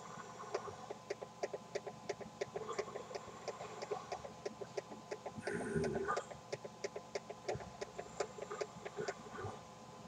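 Philips alarm clock for the deaf giving a fast, even run of faint ticks, about five a second, in step with its display stepping forward minute by minute as the time is set. A faint steady hum runs beneath, and a brief louder noise comes about halfway through.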